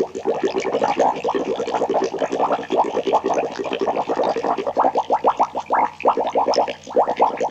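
Liquid boiling hard: a dense, continuous stream of bubbles popping, each a short rising blip, several to the second.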